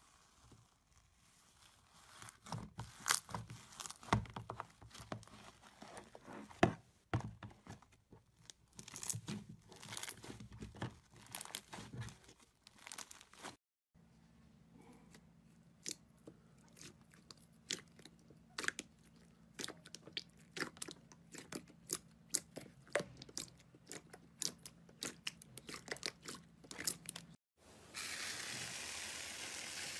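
Airy, bubbly slime being pressed and squished by hand in a plastic tub, giving off many small crackling pops as trapped air bursts. The crackling breaks off twice for a moment, and near the end turns into a steadier, denser hiss of crackles.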